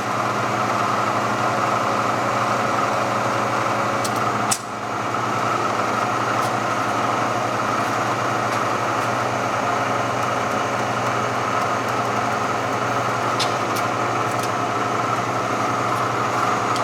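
Bridgeport Series 1 milling machine running with its Bridgeport power feed driving the table, a steady motor and gear whine. A click and a brief dip in level come about four and a half seconds in.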